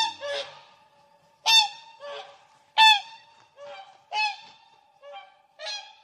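Whooper swans giving flight calls: a series of about eight to ten calls at irregular intervals, some loud and close, others fainter.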